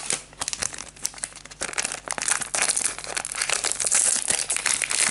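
A trading-card booster pack wrapper crinkling and tearing as it is opened by hand. The crackling gets denser and louder about a second and a half in.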